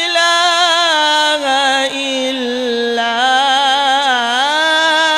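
A man's voice reciting the Quran in the melodic tajweed style, drawing out a long vowel with wavering, ornamented slides in pitch.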